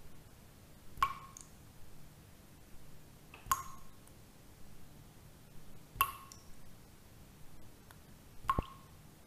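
A sharp ping with a short ringing tail, repeated four times about every two and a half seconds, over a faint low steady hum.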